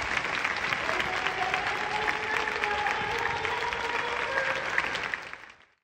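Large stadium crowd applauding steadily, a dense wash of many hands clapping, fading out near the end.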